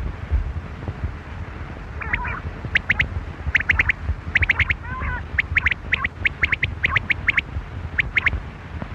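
Quail calling in quick groups of two to four sharp, whistled notes repeated throughout, with a couple of lower, bubbling calls about two and five seconds in, over a low rumble.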